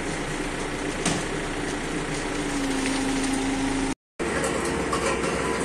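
Diesel engine of an MST backhoe loader running steadily, with a short knock about a second in. The sound drops out briefly at a cut about four seconds in, then a steady engine hum carries on.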